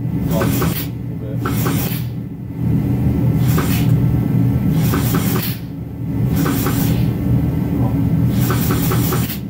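Steady low machine hum, with sharp metallic clicks and knocks of steel parts being handled, scattered through at irregular intervals.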